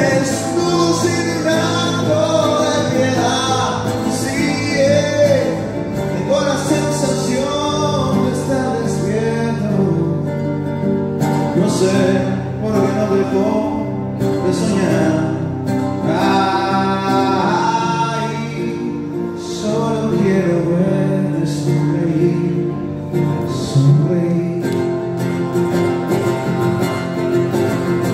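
Band music: a man singing over guitar and backing instruments.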